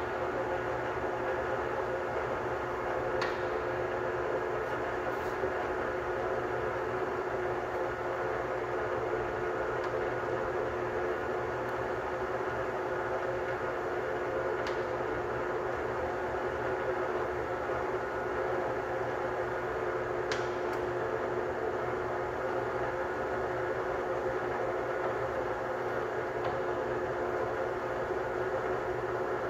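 EMCO Maier Maximat V13 13" x 40" geared-head lathe running under power with its 3-horsepower motor: a steady hum with a constant whine from the headstock gearing. A few faint clicks come through now and then.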